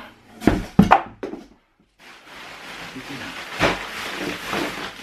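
Two sharp thumps, as of cardboard packaging knocked or set down, then a clear plastic bag rustling and crinkling as it is pulled off the boxed electric skateboard.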